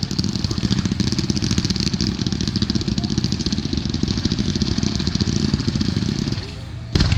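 Fireworks crackling: a dense, rapid stream of tiny pops for about six seconds that dies away, then one sharp loud bang near the end.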